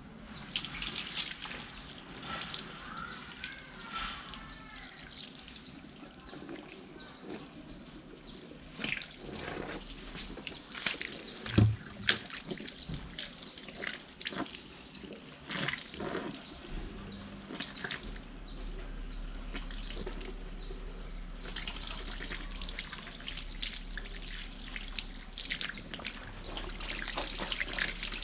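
Liquid trickling and dripping, with scattered small clicks and knocks and one louder knock about twelve seconds in.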